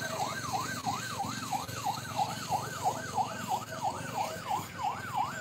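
An emergency siren in a fast up-and-down yelp, about three sweeps a second, over a low rumble of vehicles.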